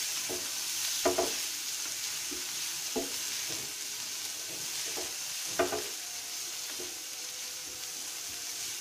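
Chopped onions sizzling in butter and oil in a non-stick frying pan, being lightly sautéed to soften. A spatula stirs them and knocks against the pan every second or so, with the loudest knocks about a second in and just past halfway.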